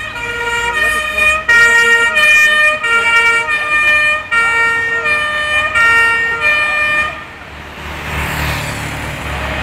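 Fire engine's two-tone horn, switching between a high and a low note about every half second. It cuts off about seven seconds in, leaving the low rumble of engines and passing traffic.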